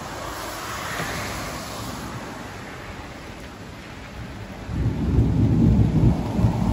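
Rain falling steadily, then about three-quarters of the way in a loud, low rumble of thunder breaks in and keeps rolling.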